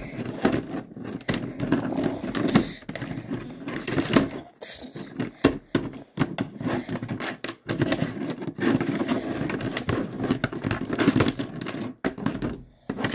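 Plastic toy figures and LEGO pieces clacking and knocking against each other and the baseplate in quick, irregular strokes, as they are handled in a mock fight.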